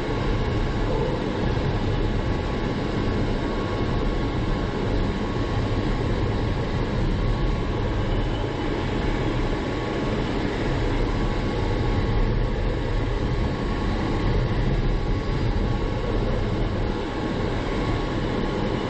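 Steady rushing airflow noise inside the cockpit of an ASW 20B sailplane gliding in cruise, with no engine running.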